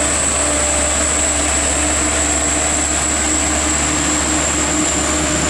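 Heavy diesel truck engine running steadily, with a steady high-pitched whine over it.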